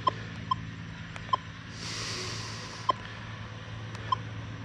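Metal detector's keypad giving five short high beeps at irregular intervals as buttons are pressed to step through the detect modes and check the ground balance setting, over a steady low hum.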